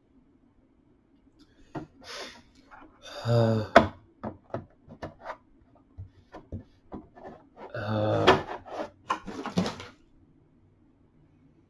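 Plastic gallon jug being handled and its screw cap worked, making scattered short clicks and knocks. A man's voice makes two short wordless sounds, about 3 s in and again about 8 s in.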